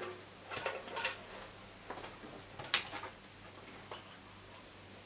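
Scattered light clicks and knocks of PC parts being handled, with one sharper click near the middle.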